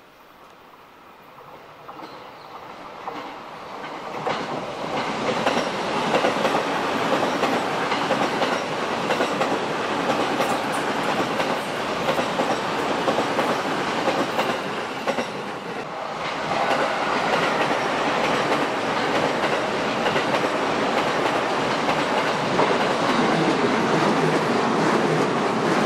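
JR Sobu Line electric train passing on the curve, growing louder over the first few seconds as it approaches, with wheels clattering over the rail joints. The sound dips briefly about two-thirds of the way through, then rises again and stays loud.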